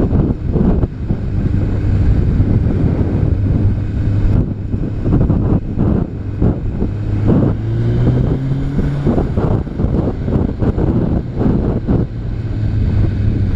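Honda CBR900RR Fireblade's inline-four engine running at a steady cruise, its pitch rising briefly about eight seconds in, with wind buffeting the camera microphone.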